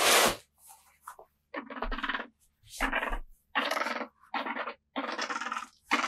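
Northern white-faced owl making a run of short, raspy grumbling calls, about five in a row, each under a second. A loud, sharp burst of noise comes right at the start.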